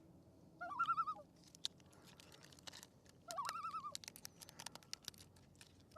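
Common loon giving its wavering tremolo call twice, a few seconds apart, over scattered sharp clicks.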